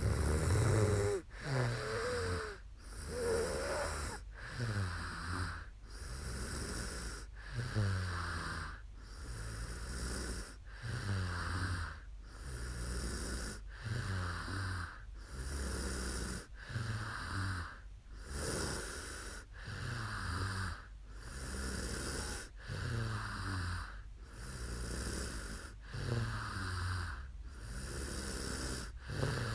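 A sleeping woman snoring steadily and regularly, each breath a low, fluttering snore followed by an airy hiss.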